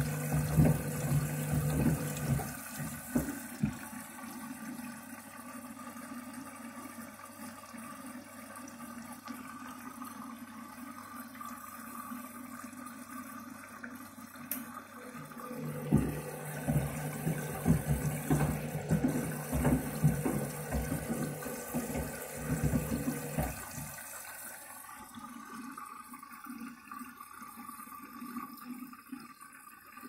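Front-loading washing machine in a wash with shoes in the drum: water sloshing with irregular knocks and a low hum while the drum tumbles, in two spells, over the first few seconds and again from about 15 to 23 seconds in, with a quieter steady water sound between and after.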